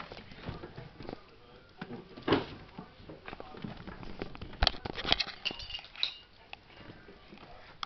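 Scattered light clicks, taps and clatter of small hard objects, with a couple of louder knocks about two and four and a half seconds in.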